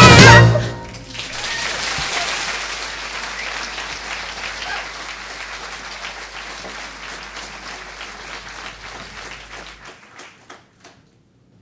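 A musical number's final note from the pit band cuts off about half a second in. Then a theatre audience applauds, the applause slowly dying away into a few scattered claps near the end.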